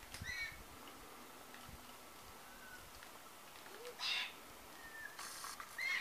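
White-winged choughs calling: a string of short, separate whistling calls, some falling in pitch, the loudest about four seconds in and again at the end. A brief rustle comes just before the last call.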